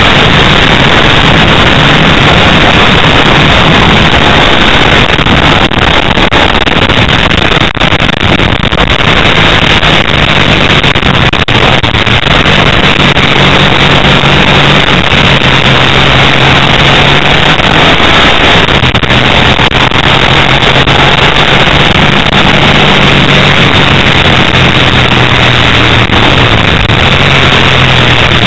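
Onboard sound of a Ducati 888's 90-degree V-twin engine running at a fairly steady pitch, smothered in heavy wind rush on the microphone and heavily overloaded.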